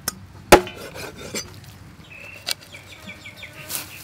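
A knife chopping through a whole stingray onto a thick wooden chopping board: a few sharp knocks, the loudest about half a second in, with lighter taps and cuts after it.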